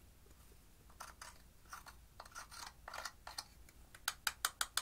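Thin metal tool scratching and crumbling a pressed eyeshadow in its plastic compact, in quiet irregular strokes. Near the end come about six quick, sharp taps as the compact is knocked to shake the loosened powder out into a glass dish.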